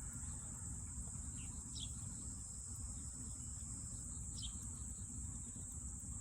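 A steady, high-pitched chorus of insects such as crickets in an autumn rice field, over a low steady rumble, with two short high chirps about two seconds in and again past the middle.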